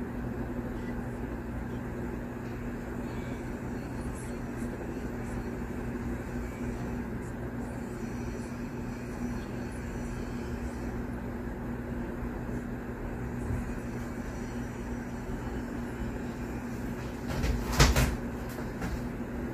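Steady background hiss with a faint low hum, and a short clatter of knocks near the end.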